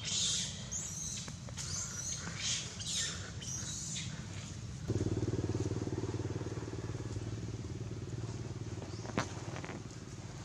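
A small motorcycle engine running steadily, cutting in suddenly about halfway through and dropping away near the end. Before it, a few short high-pitched sounds.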